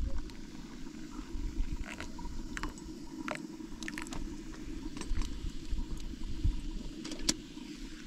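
Tea poured from a metal teapot into small glass tea glasses on a metal tray, with a few light clinks of glass and metal, over a steady low wind rumble on the microphone.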